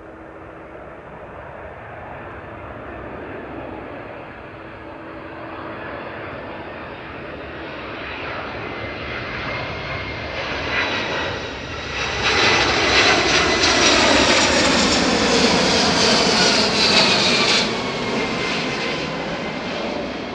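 Boeing 767-300 airliner on final approach passing low overhead with its jet engines running. The noise builds steadily and is loudest, with a high whine, for several seconds past the middle. The whine then falls in pitch and drops away suddenly as the plane passes, leaving a fading rumble.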